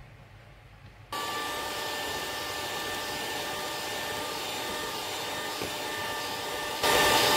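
Electric hand mixer switched on about a second in and running steadily with a whine, beating creamed butter and sugar as egg white is added; it gets louder near the end.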